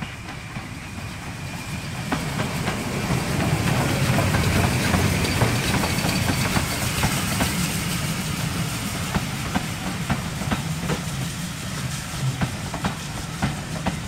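Steam locomotive hauling a train of coaches past close by: steam hissing and the engine working, building up over the first two seconds, then the coaches' wheels clicking over the rail joints as they roll past.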